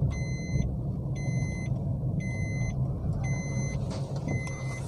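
A car's dashboard warning chime beeps steadily about once a second, five half-second beeps, over the low engine and road rumble inside the cabin of a moving Maruti Swift Dzire automatic.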